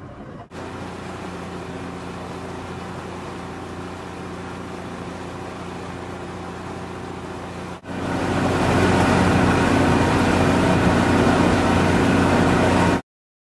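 A boat's motor running steadily at a constant pitch. It gets louder after a brief break about eight seconds in, then cuts off abruptly shortly before the end.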